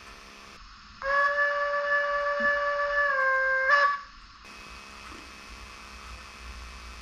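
Steam whistle from the sound unit of a Märklin H0 BR 56.2-8 model steam locomotive: one blast of about three seconds that dips slightly in pitch just before it cuts off. A faint steady hiss runs before and after it.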